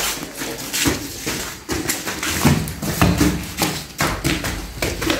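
Footsteps of several people in sandals hurrying down stairs: irregular taps and thuds.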